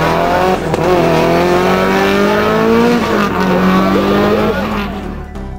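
Race car engine accelerating hard up through the gears, its pitch climbing and dropping at an upshift about half a second in and again about three seconds in. The engine fades away near the end.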